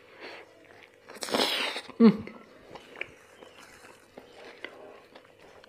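A man biting and chewing a hot dog close to the microphone, with small wet mouth clicks. About a second in comes a loud breathy rush, then a short falling vocal sound.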